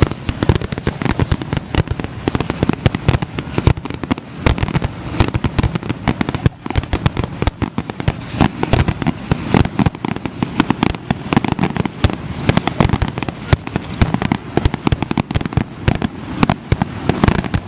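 Fireworks grand finale: a dense, unbroken barrage of bangs and pops, many a second.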